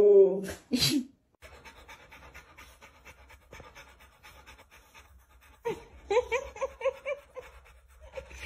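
A husky's howl ends just after the start. Then a Rottweiler pants, quietly at first and from about halfway through louder and rhythmic, about three to four breaths a second with a short pitched note in each.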